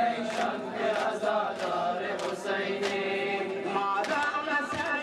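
A group of voices chanting a Muharram mourning lament together, with sharp beats in time, about three every two seconds.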